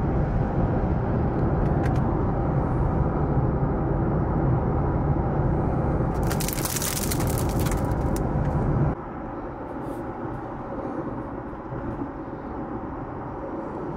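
Severe thunderstorm wind gusts buffeting the microphone, with a loud, steady rushing noise of wind and blowing rain. A harsher hiss comes in for about two seconds around six seconds in, and the noise drops suddenly to a lower level about nine seconds in.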